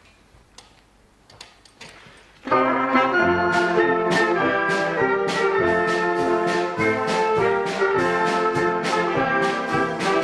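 A wind band of brass, saxophones and flute playing full chords, coming in loud about two and a half seconds in after a few faint clicks. Percussion strokes mark a steady beat about twice a second.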